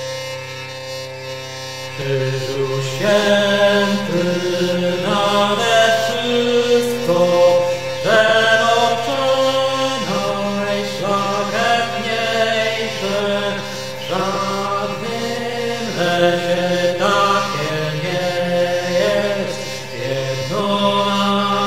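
Slow vocal chant over a steady low drone. The drone sounds alone at first, and the chanted melody comes in about two seconds in, moving in long phrases.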